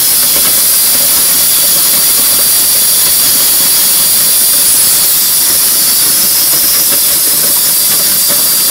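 Powered grain rescue auger running with a steady, loud hiss, drawing corn out of the rescue tube around the trapped person.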